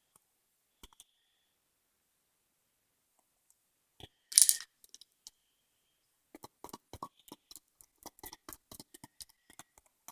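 Slime being pressed and squeezed by hand, making a run of sharp clicks and pops. A short, loud crackling burst comes about four seconds in, and the clicks and pops come several a second over the last four seconds.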